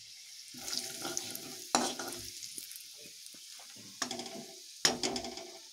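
Ground spices sizzling in hot oil in a metal kadhai as ground coriander goes in. A metal ladle stirs and scrapes against the pan, with a few sharp metallic clinks.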